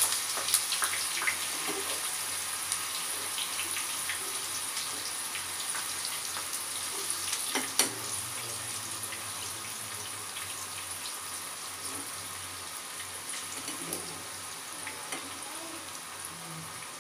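Brinjal slices deep-frying in hot oil in a metal pan: a dense crackling sizzle that slowly dies down as the slices cook. A slotted metal spoon clinks sharply against the pan once, about eight seconds in.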